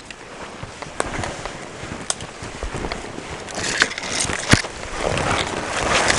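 Snowshoe footsteps crunching through deep snow with dry twigs and branches snapping sharply now and then, the crunching and snapping growing louder toward the end.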